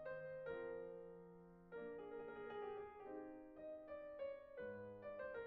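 Soft background piano music: quiet sustained chords that change about once a second.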